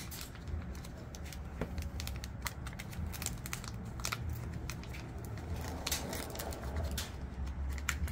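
Hands handling small plastic parts and packaging: scattered crinkles, crackles and light clicks, over a steady low hum.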